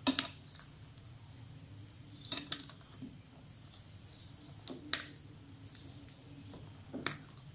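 A spoon stirring thick cake batter in a bowl: faint soft squishing, with a handful of sharp clicks where the spoon knocks against the bowl.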